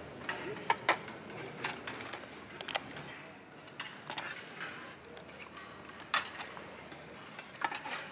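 Dining-hall ambience: scattered short clinks and knocks of plates, cups and cutlery over a low murmur of voices.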